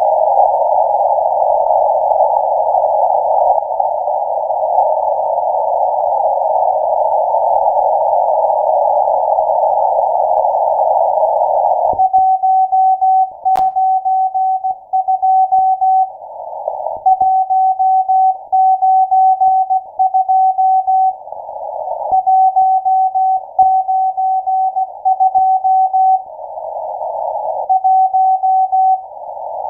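Shortwave Morse code from the M12 numbers station, heard through an SDR receiver in CW mode. For about twelve seconds there is only a narrow band of static hiss. Then a single steady beep tone comes in, keyed on and off in dots and dashes, with the hiss swelling back up in the longer pauses between characters.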